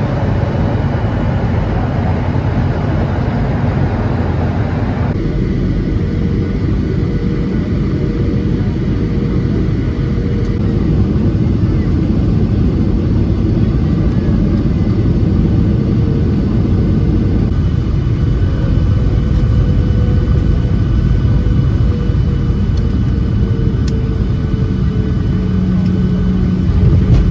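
Airliner cabin noise: a loud, steady engine and air rumble. The hiss thins out about five seconds in, and a faint tone slowly falls in pitch over the second half.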